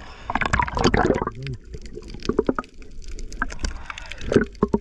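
Seawater splashing and sloshing against a camera at the surface while a gill net is hauled. About a second in it turns muffled as the camera goes under, leaving underwater bubbling with scattered knocks and clicks.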